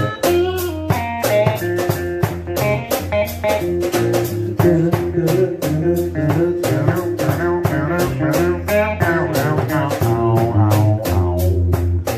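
Live electric blues jam: an electric guitar playing blues lines through an amplifier over a drum kit keeping a steady beat.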